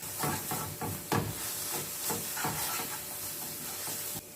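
Onion-tomato masala sizzling in a pan as spice powders are stirred in, with a spoon scraping the pan in repeated irregular strokes. The sound cuts off suddenly near the end.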